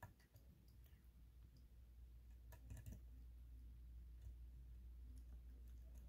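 Faint clicking of a dimple pick working the telescoping pin-in-pin stacks of a Mul-T-Lock cylinder held under tension, with a short cluster of clicks about two and a half seconds in, over a low steady hum.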